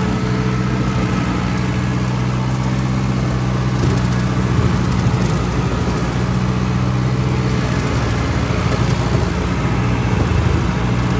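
Tractor engine running steadily under load, driving a rear slasher through thick, dry African love grass.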